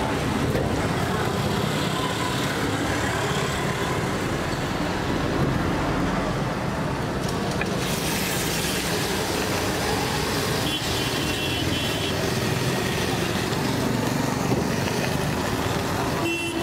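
Steady roadside traffic noise, vehicles running past in a continuous wash; the high hiss grows brighter about halfway through.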